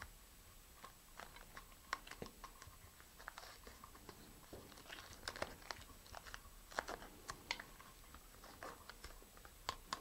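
Faint crinkling and small irregular clicks of tape and a flat nylon shock cord being handled and pressed down by hand.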